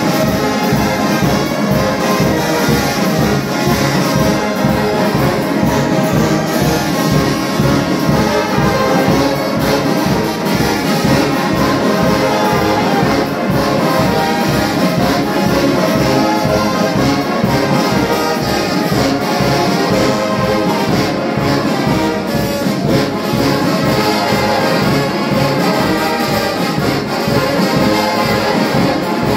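Kimbanguist brass band (fanfare) playing continuously, sousaphones and other brass sounding together over a steady low pulse.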